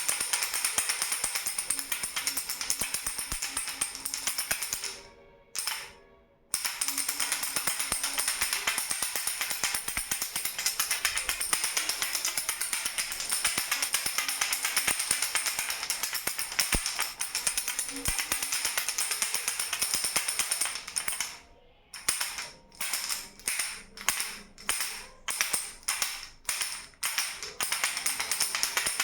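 A baby's rattle shaken continuously, a dense jingling rattle that stops for a moment about five seconds in. Near the end it is shaken in separate strokes, about two a second.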